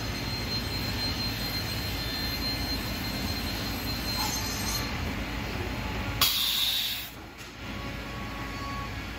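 Anderson Stratos WFD CNC router running a cutting program: a steady machine noise from its spindle and axis motion. About six seconds in there is a short, loud burst of hiss, and then the machine noise briefly drops before picking up again.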